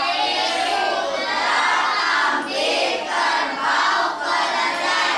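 A class of schoolchildren calling out loudly together, many voices at once.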